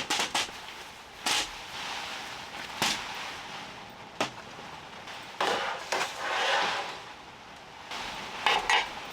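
Objects being handled and set down: a quick run of clicks at the start, then a few separate sharp knocks, a rustling stretch and a short clatter near the end.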